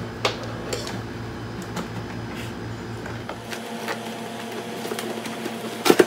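A cardboard box being handled and its packaging cut with scissors: scattered clicks and scrapes, with the sharpest pair of snips or knocks just before the end.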